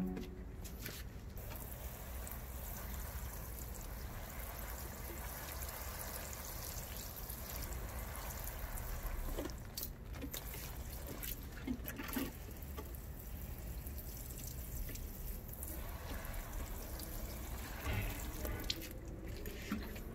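Water trickling and dripping in a freshly watered plant pot, over a faint steady hiss with a few soft taps.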